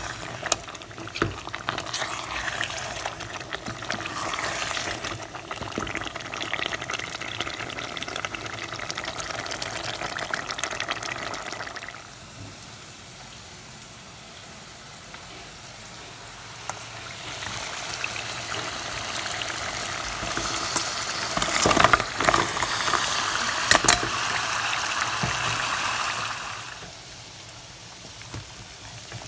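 A pot of curry cooking and sizzling while a spoon stirs it, with scattered scraping clicks against the pot. The sizzle drops to a quieter hiss about twelve seconds in, builds up again with several sharp scrapes a few seconds later, and quietens near the end.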